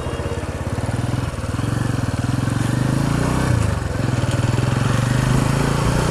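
Motorcycle engine running while riding, heard through a helmet-mounted microphone; the engine picks up about a second in, eases briefly around three and a half seconds in, then runs steady.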